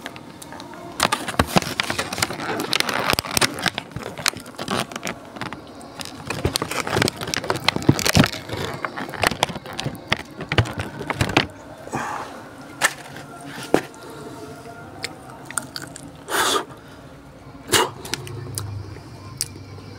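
Cats crunching and chewing fried chicken: a dense run of small crackles and crunches that thins out after about twelve seconds into a few separate, louder crunches.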